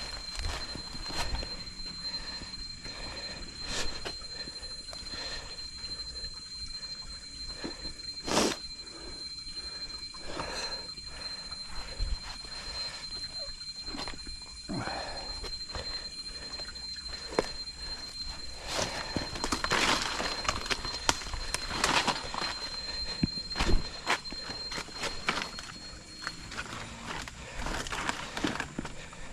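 Footsteps crunching and rustling through jungle leaf litter and brush, louder for a few seconds past the middle. Over them an insect holds one steady high-pitched note, which stops near the end.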